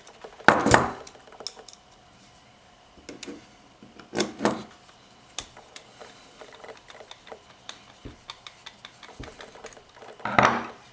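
Small metal parts clinking and knocking as a pressure switch is put back together: bolts and metal plates being handled and screwed in. There are louder clatters about half a second in, around four seconds in and near the end, with light ticks in between.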